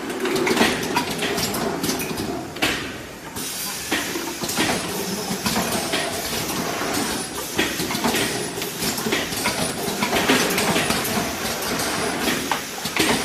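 Automatic four-head tracking piston filling machine running: a steady mechanical clatter with many short clicks and knocks.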